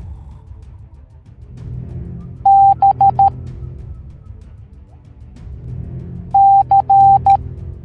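Morse code beeps at one steady pitch, sounding two letters about four seconds apart over quieter background music. The first group is one long and three short beeps, B. The second is long, short, long, short, C.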